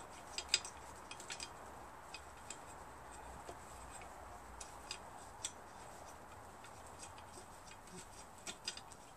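Faint, irregular small metallic clicks and ticks from a bolt and washer being turned by hand into an air compressor's finned cylinder head, threading it through the new head gasket.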